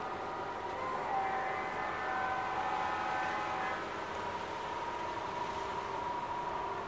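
Horn of a G-scale model diesel locomotive sounding a held chord of several notes for about two and a half seconds, then a single steady high tone, over the running noise of the train.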